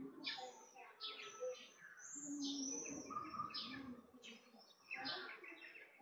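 Small songbirds chirping: a busy run of short, high notes that thins out about four seconds in and picks up again a second later.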